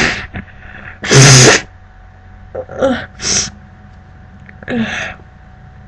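A woman sneezes once, loud and sudden, about a second in, then makes a few short, quieter sounds. The sneezing comes from her allergy to cats.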